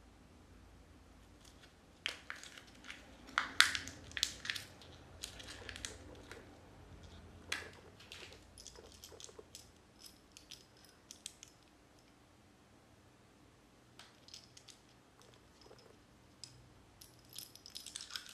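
Crinkling of a Kinder Joy toy's plastic wrapper and small plastic toy parts clicking and rattling as they are unwrapped and handled, in irregular bursts of sharp clicks. A quiet spell of a couple of seconds comes before a further run of clicks and clatter near the end.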